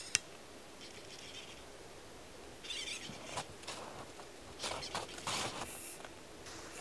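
Firework fuses igniting and burning on a remote-controlled rocket launcher: faint fizzing hiss in short spurts, with a sharp click just after the start and a few more later.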